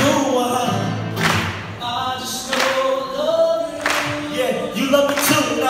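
Live band music: singing over acoustic guitar, with a cajon hit about every one and a third seconds.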